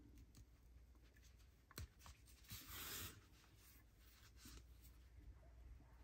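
Near silence, broken near the middle by a faint, soft rustle of yarn being drawn through crocheted fabric with a tapestry needle, with a small tick just before it.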